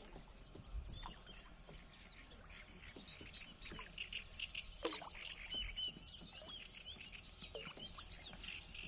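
Faint, continuous chirping of small birds, with a few light knocks and a sharper one about five seconds in.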